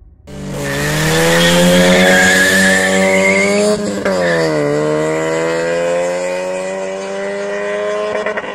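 Opel Astra GSI and Opel Calibra 2.0 16v four-cylinder engines accelerating flat out in a drag race, with tyre squeal in the first couple of seconds. The engine note climbs steadily, drops at a gear change about four seconds in, climbs again and drops at another shift at the very end.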